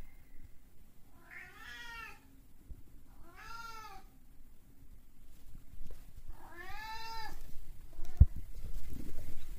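Ragdoll cat meowing three times, each meow rising and then falling in pitch, demanding food. Near the end come two short low thumps.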